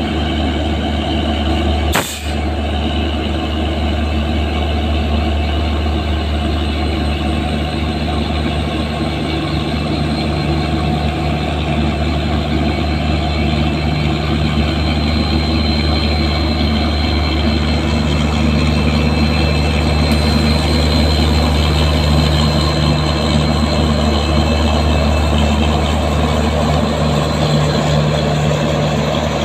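WDP4D diesel-electric locomotive's engine running with a loud, steady deep drone as it draws the train slowly past, growing gradually louder. A thin high whine joins it about halfway through, and there is one sharp knock about two seconds in.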